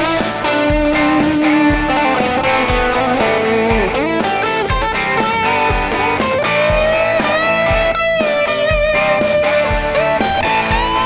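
Background music: a blues-rock track led by an electric guitar playing bending lead notes over a steady beat.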